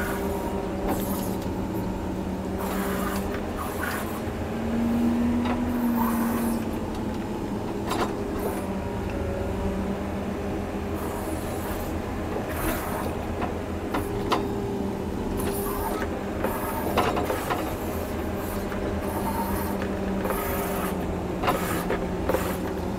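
John Deere 670G motor grader's diesel engine running steadily under load while grading, rising briefly in pitch about five seconds in, with scattered clicks and knocks.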